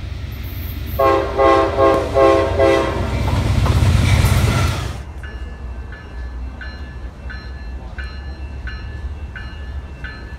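An approaching train sounds its horn in about four short blasts, then its noise swells loud until it cuts off abruptly about five seconds in. After that a low rumble goes on with a short bell-like ding repeating about every 0.7 seconds.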